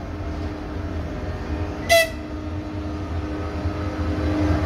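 Train running with a steady low rumble, and a single short horn toot about two seconds in.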